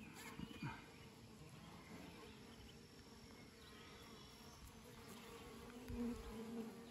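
Honeybees buzzing faintly around an opened hive during a frame inspection: a low, steady hum, with an odd bee swelling louder as it flies close past near the start and about six seconds in.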